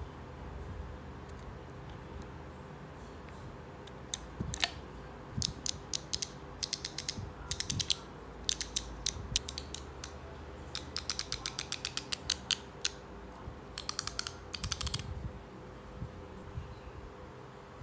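Freehub pawls of a 1992 White Industries Tracker rear cassette hub ratcheting as the hub turns. From about four seconds in there are repeated short bursts of rapid, sharp clicks.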